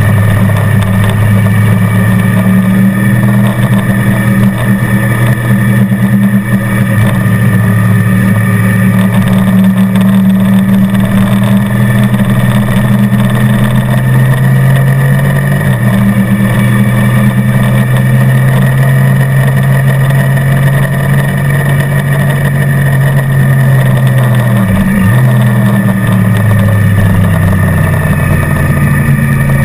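Motorcycle engine running at steady speed under way on a track, heard from a camera mounted on the bike. Its pitch holds steady for long stretches, with a small step partway through and a sharp brief dip near the end before it climbs again.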